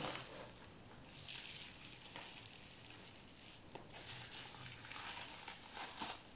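Bubble wrap and plastic packaging crinkling and rustling in short bursts as a wrapped item is pulled out of a cardboard box, with a few small clicks.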